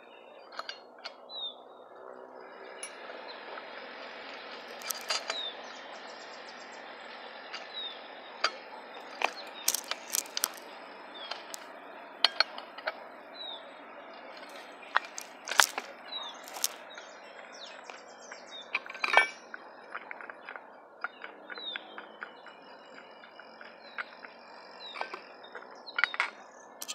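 Sharp metal clinks and taps of hand tools against a brush cutter's three-tooth steel blade and its retaining nut as the blade is loosened and taken off, over a steady outdoor hiss. A bird chirps short falling notes every second or two.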